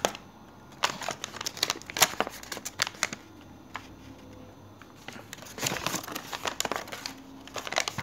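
Folded paper instruction leaflet being unfolded and smoothed out by hand, crinkling and rustling in two busy spells with a quieter stretch in the middle.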